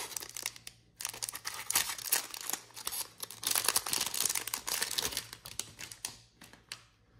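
Trading-card pack wrapper being torn open and crinkled by hand: a dense, crackling rustle of plastic wrapper with many small clicks, pausing briefly about a second in and thinning to a few light ticks near the end.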